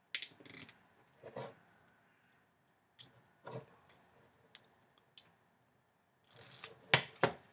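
Cellophane wrap on a deck of cards being picked at and torn off by hand: scattered small crinkles and clicks, then louder crinkling and tearing near the end.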